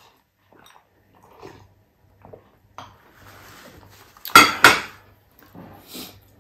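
Small glass bowl set down on a ceramic plate: two sharp clinks in quick succession about four seconds in, with softer clicks and handling noises of tableware around them.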